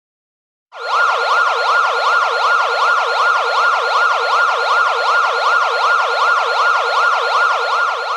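Electronic siren in a fast yelp, sweeping up and down about three times a second. It starts abruptly a little under a second in and begins to fade near the end.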